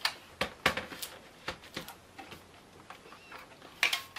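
Plastic Toshiba laptop case being handled and set down on a wooden table: a string of sharp clicks and knocks, then a quick cluster of clicks near the end as the lid is opened.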